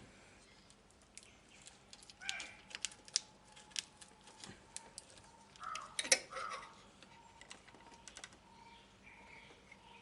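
Irregular sharp clicks and metal taps from hand tools, such as a wrench on the horn mounting nuts and terminals, while the replacement car horns are fitted. The loudest click comes about six seconds in, and a few brief chirps are mixed in.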